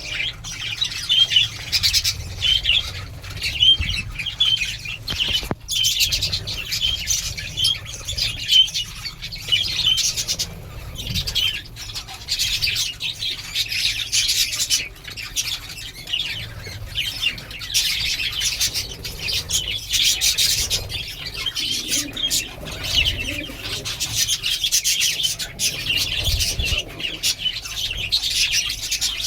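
A group of small birds chirping continuously in quick, high-pitched notes, with frequent wing flapping.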